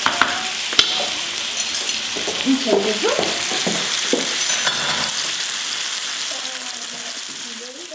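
Sliced mushrooms, bell peppers and onions sizzling in oil in a frying pan while a wooden spatula stirs and scrapes them, with a sharp knock about a second in. The sizzle eases down near the end.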